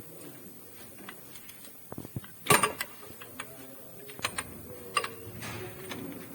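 Irregular mechanical clicks and knocks, with one sharper, louder knock about two and a half seconds in.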